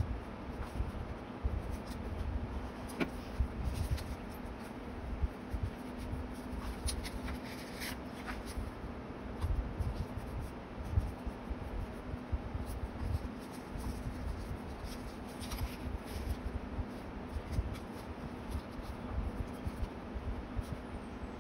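Hands handling paper: sheets, instant photos and paper labels rustling and sliding over notebook pages and the tabletop, with scattered light taps and soft thumps. A faint steady hum lies underneath.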